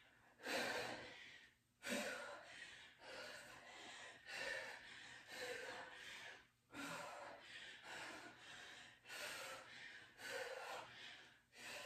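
A woman breathing hard from exertion during kettlebell swings, with a short forceful breath about once a second.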